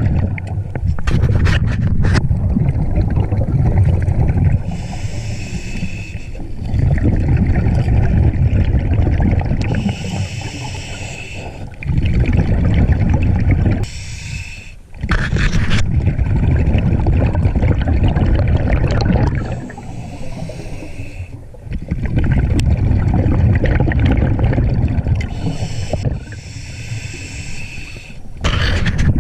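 Scuba diver breathing through a regulator underwater: a hiss with each inhale alternating with a longer, loud bubbling rumble of exhaled air, about five breaths.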